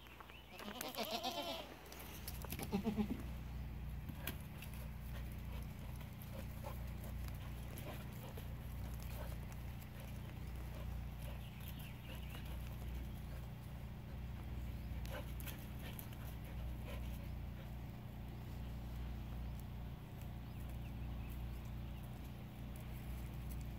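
A goat bleating, a wavering call about a second in followed by a shorter, lower call soon after, over a steady low hum.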